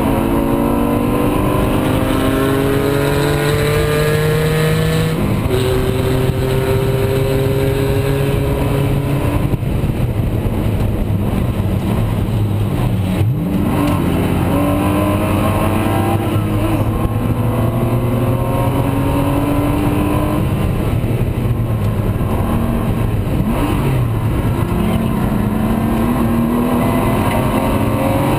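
Porsche Spec Boxster's flat-six race engine heard from inside the cabin at racing speed. It climbs in pitch under hard acceleration, drops suddenly on an upshift about five seconds in, and falls away under braking with a quick downshift blip around halfway. Then it revs up again through the gears toward the end.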